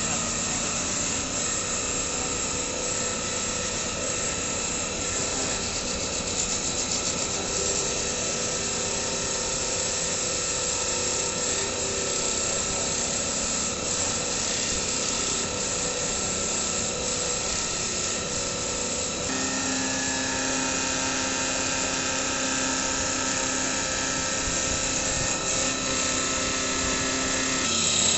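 CNC lathe with a three-head spindle and autoloader running through its machining cycle: a steady mechanical whine with cutting noise. About two-thirds of the way through, its pitches shift as the machine changes speed or operation.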